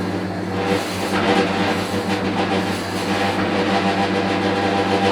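4x6 metal-cutting bandsaw running: a steady motor hum with a noisy whir of the blade above it.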